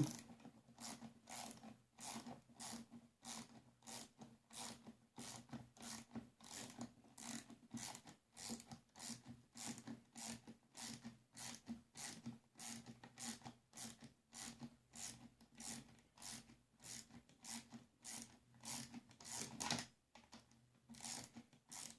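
Ratchet wrench clicking as a bolt is tightened, a steady run of short faint clicks about two to three a second.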